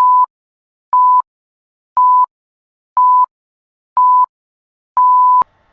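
Radio time signal: six short, steady, high beeps a second apart, the last one longer, marking the top of the hour.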